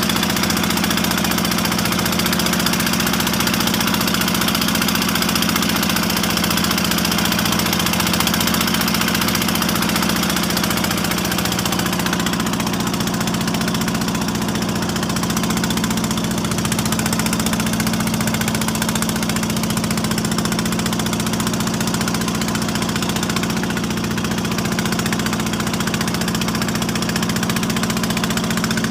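A wooden outrigger fishing boat's engine running steadily under way, a constant drone at an even level, with water rushing along the hull.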